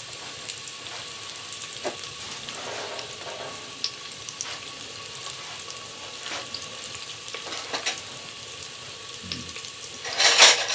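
Sliced onions sizzling in vegetable oil in a cast iron potjie pot, a steady frying hiss dotted with small pops and crackles. Near the end comes a brief, louder rush of noise.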